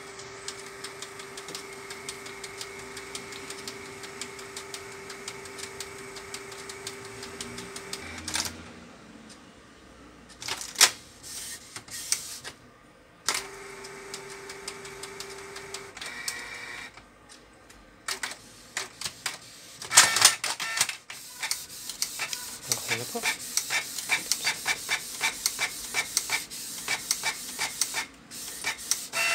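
Canon iP2770 inkjet printer running a test print. First a steady motor whine for about eight seconds, then clicks and a second short whine, then from about two-thirds in a fast run of ticking as the print-head carriage shuttles across the page. It is printing without error now that its print head has been replaced.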